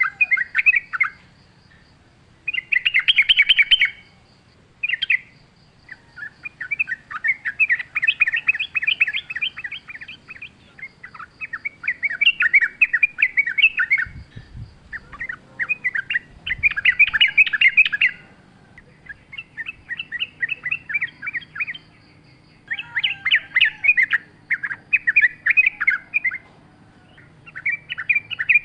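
Yellow-vented bulbul song: bursts of rapid chattering notes a second or two long, repeated again and again with short pauses between them. A faint, even high ticking runs in the background.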